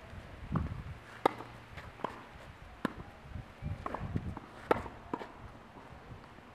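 Tennis ball struck back and forth by rackets in a rally on a clay court: sharp pops every one and a half to two seconds, the loudest near the end, with fainter ball bounces and the scuffing footsteps of a player moving on the clay in between.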